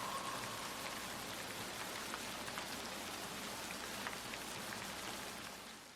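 Steady rain falling, with scattered individual drop ticks; it fades out in the last second.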